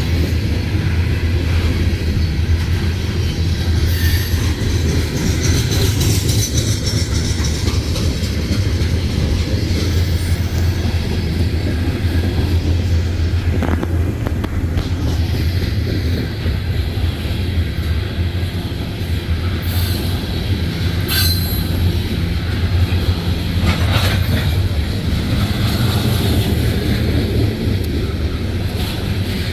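A CSX coal train's cars rolling past with a steady heavy rumble. Brief wheel squeals and sharp clanks sound a few times.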